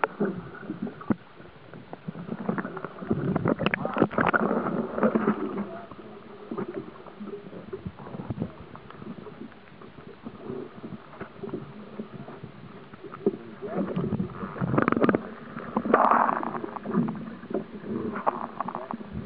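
Sounds aboard a sportfishing boat at sea: water washing and sloshing against the hull with scattered knocks and bumps, loudest in two surges, one a few seconds in and one near the end.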